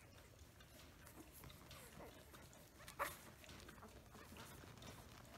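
Newborn Samoyed puppies nursing, with faint suckling noises and a few short, soft squeaks. One sharp click about three seconds in.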